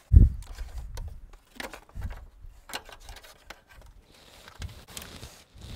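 Plastic radiator fan shroud being worked down into place against the radiator: a low thump right at the start, then scattered knocks, clicks and scraping as its legs are guided into the radiator's grooves.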